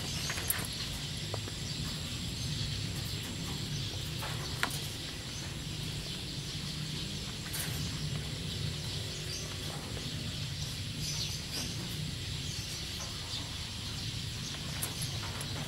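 Steady outdoor background of birds chirping over a low, even hum, with a few faint clicks.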